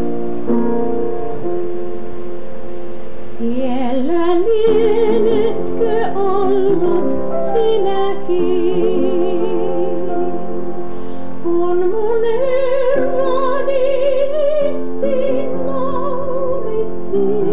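A woman singing a slow song with wide vibrato over piano accompaniment. The piano plays chords alone at first, and the voice comes in about three and a half seconds in on a rising phrase, then holds long notes.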